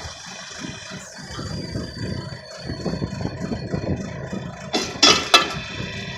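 Backhoe engine running at a pulsing idle, with two short loud noisy bursts about five seconds in.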